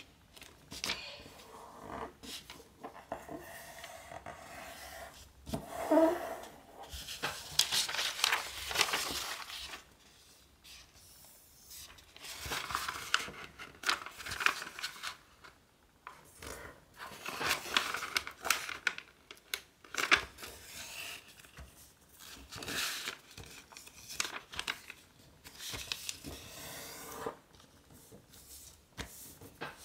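A large sheet of origami paper being handled and folded: rustling, crinkling and sliding on the table as it is flipped over and creased flat, in irregular bursts, loudest about six seconds in.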